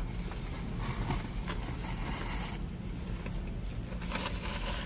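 Paper food wrapper rustling and crinkling in the hands, over the steady low hum of a car's cabin.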